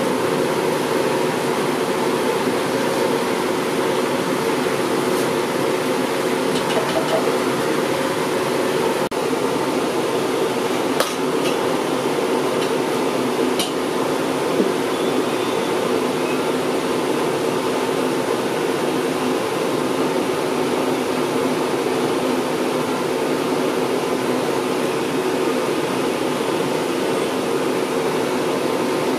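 Steady mechanical hum, like a fan or blower, with a few sharp clicks in the middle.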